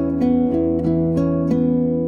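Background music: an acoustic guitar picking sustained notes over a steady low accompaniment.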